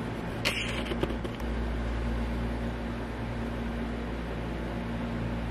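Steady low hum of room noise, with a brief rustle about half a second in and a few light clicks around a second in.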